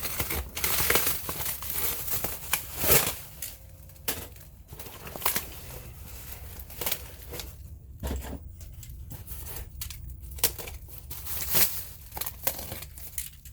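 Packing material being handled while a shipping box is unpacked: irregular crinkling and rustling with short tearing sounds, louder about three seconds in and again near the end.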